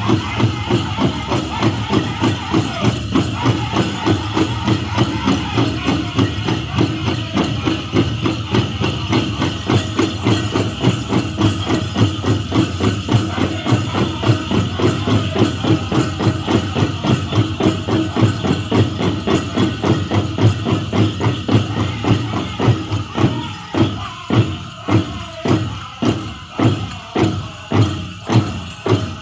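Powwow drum group singing a chicken dance song, pounding a large shared drum in a steady beat, with dancers' bells jingling. Near the end the singing falls away and the drum strokes sound on their own, about two a second.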